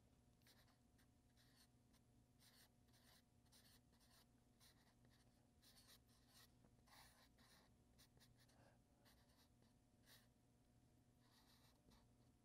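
Black felt-tip permanent marker drawing on a paper easel pad: faint, irregular short scratching strokes, in small clusters, over a low steady hum.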